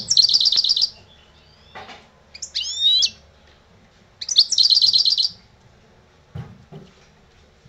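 European goldfinch singing in three bursts of about a second each: a fast run of repeated high notes, then a phrase of twittering up-and-down sweeps, then another fast run, with short pauses between. Two soft knocks near the end.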